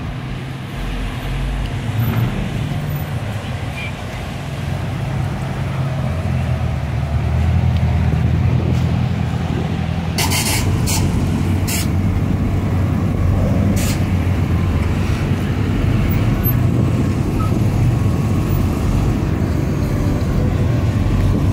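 Cars idling and creeping in slow traffic, led by the low, steady exhaust rumble of a nearby Chevrolet Corvette's V8, which grows louder about a third of the way in. A few sharp clicks come near the middle.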